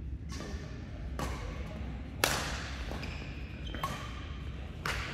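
Badminton rackets striking a shuttlecock in a doubles rally: five sharp cracks about a second apart, the loudest a little over two seconds in, over a steady low hum.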